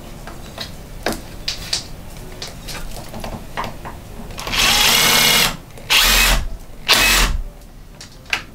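Makita cordless drill driving a self-tapping screw through a solar panel mounting foot into the panel's frame. A few light clicks come first, then the drill runs for about a second, followed by two shorter bursts as the screw goes home.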